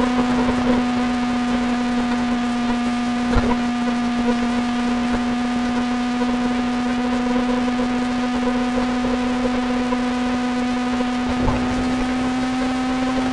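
Kawasaki ZX-25R's 250 cc inline-four engine running at steady high revs, a constant high-pitched drone that holds one pitch throughout, with two brief knocks about three and a half and eleven and a half seconds in.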